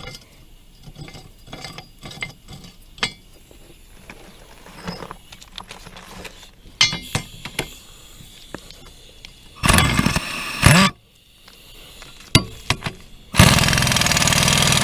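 Metal clicks and clinks of hand tools and mower blade hardware. Then two loud, steady bursts of a power tool: one of about a second, and one of about two and a half seconds near the end.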